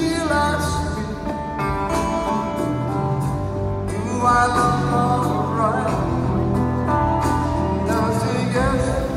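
A live rock band playing in an arena while a man sings lead vocals.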